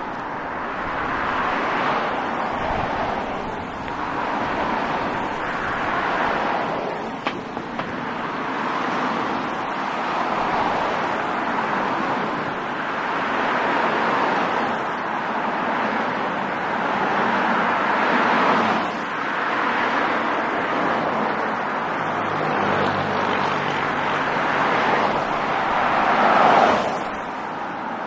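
Steady street traffic: cars and SUVs driving past one after another, the tyre and engine noise swelling and fading as each vehicle goes by, loudest with a pass near the end. A single brief click about seven seconds in.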